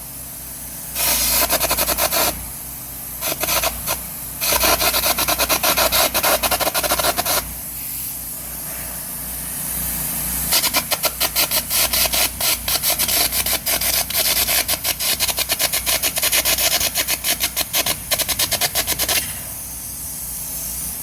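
Carbon arc gouging with a 3/16-inch carbon at about 250 amps. The arc crackles harshly in several runs of a few seconds each, the longest about eight seconds. Between runs there is a steady hiss and the low hum of the engine-driven welder.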